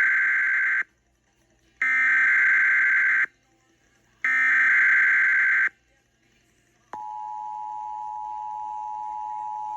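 Emergency Alert System test tones: three bursts of SAME header data tones, each about a second and a half long with short gaps between. About seven seconds in, the steady two-tone EAS attention signal starts.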